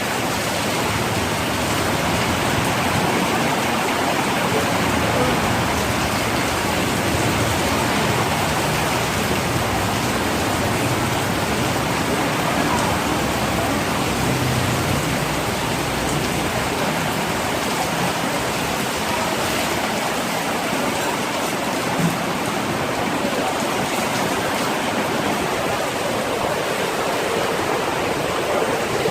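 Heavy tropical rain pouring down steadily: an unbroken downpour.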